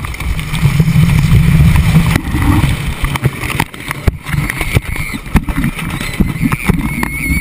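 Georgia Cyclone's wooden roller coaster train running over its wooden track at speed. A heavy rumble for the first two seconds gives way to a jostling rattle of knocks and clacks.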